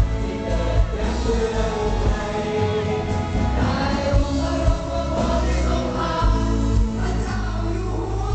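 Live pop performance of a Thai patriotic song: a male singer and female singers singing together into microphones, amplified over a backing track or band with a steady bass and drum beat.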